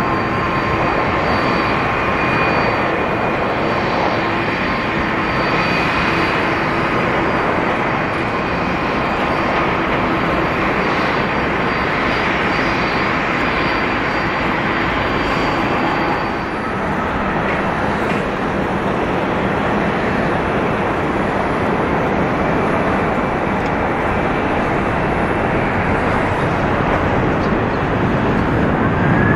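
Jet airliner engines running steadily, a continuous loud rush with faint high whining tones over it in the first half.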